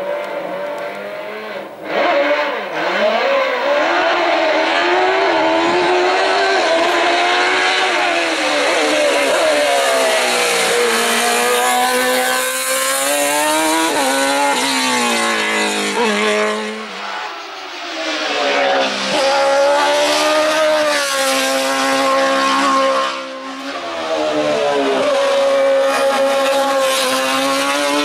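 Sports-prototype race car engine at full throttle on a hill climb, its pitch climbing through each gear and falling back at the shifts and when it lifts off for bends.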